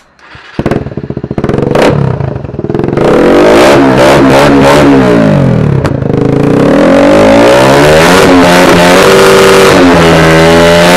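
Suzuki Raider 150 carb's single-cylinder four-stroke engine comes in about half a second in and is then revved up and down again and again, loud. It runs through an Apido aftermarket exhaust packed with three balls of steel wool to give a crisper, fuller note.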